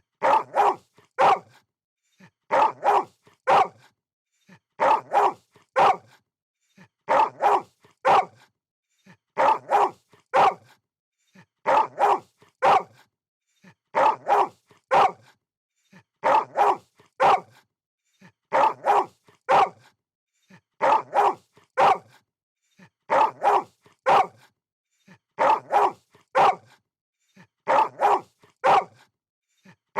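Dog barking in quick groups of three, the same phrase repeating evenly about every two seconds.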